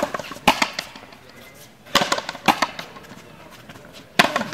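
Frontó ball rally: sharp smacks of the ball being struck and hitting the front wall, coming in pairs about half a second apart and ringing off the court's walls.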